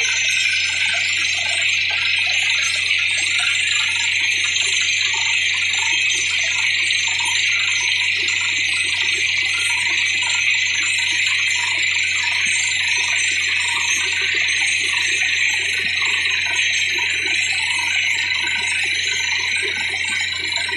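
Borewell drilling rig running: a steady rushing hiss over a low hum, with small irregular sounds scattered through it.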